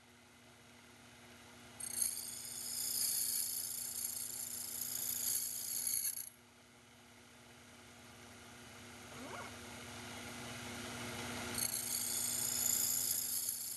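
Sherline CNC milling setup cutting gear teeth with a slitting saw: a high-pitched cutting whine starts suddenly about two seconds in, runs about four seconds, stops abruptly, and starts again near the end, over a steady low machine hum.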